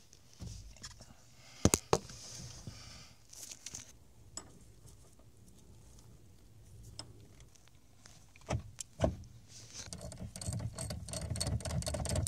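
Metal tools and parts clinking and rattling during work on a car's steering shaft universal joint under the dashboard: a few separate sharp clicks, then a rapid run of clicking and rattling from about ten seconds in.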